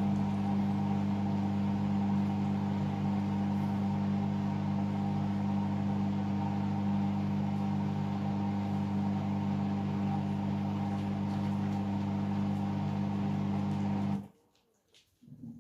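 Hoover All In One washing machine's drain pump humming steadily as it pumps out the water, then cutting out suddenly near the end. A brief, faint low sound follows.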